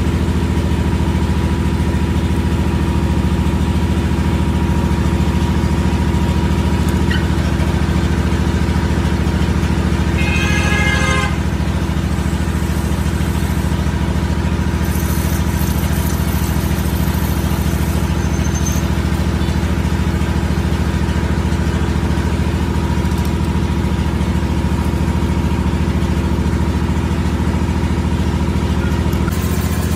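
Metal lathe running with a steady machine hum, with a brief high squeal about ten seconds in.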